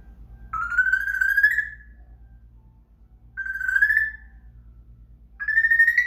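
African grey parrot whistling three times, each a clear whistle of about a second that rises slightly in pitch.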